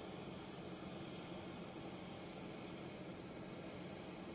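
Steady machinery drone with a constant high-pitched hiss over it, from ground equipment or an aircraft's auxiliary power running beside a parked transport aircraft.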